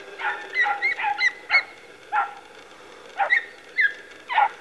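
Young Podenco Orito hunting dogs giving tongue in cover on rabbit scent: a string of about ten short, high yelping barks at an irregular pace, several dropping in pitch.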